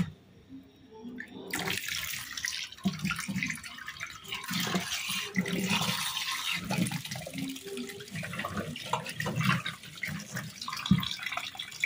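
A tap running into a steel bowl of mangrove clams in a stainless steel sink, starting about a second and a half in. Hands rub the clams under the stream, and the shells knock against each other and the bowl.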